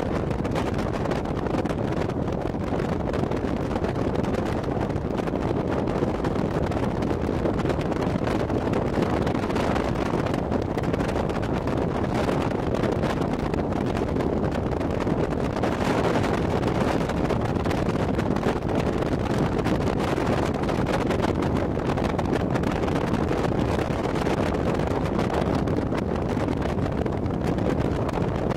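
Steady wind rushing over the microphone of a motorboat running at speed, with the boat's motor and hull on the water under it.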